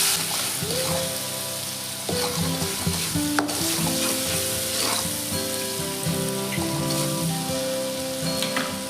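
A paste of garlic, king chilies, turmeric and salt sizzling as it fries in a little oil in a pan, being stirred, with a sharp clink about three and a half seconds in.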